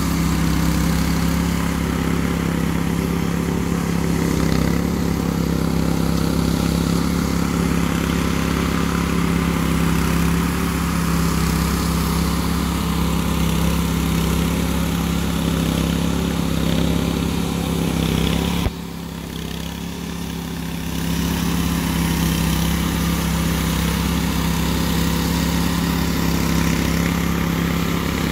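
Small petrol engine of a walk-behind concrete power trowel running at a steady speed as its rotating blades float a fresh concrete slab. The sound drops sharply about two-thirds of the way through and comes back about two seconds later.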